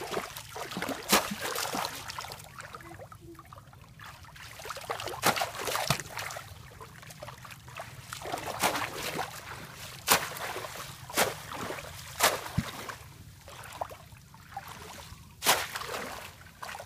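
Repeated splashes and sloshing as a woven bamboo plunge-basket fish trap is thrust down into shallow muddy water by someone wading. The sharp splashes come irregularly, about eight in all, with softer water movement between them.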